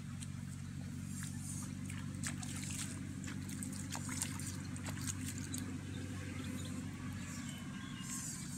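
Shallow pond water splashing and trickling as a person wades in and feels through it by hand, with small splashes and drips clustered in the first half. A steady low hum runs underneath.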